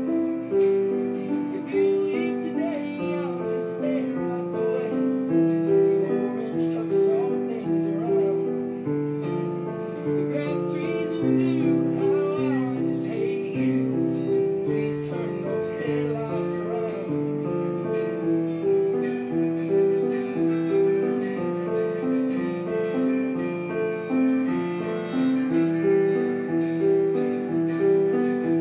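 Piano playing a steady, repeating pattern of broken chords, over a background recording with singing and guitar.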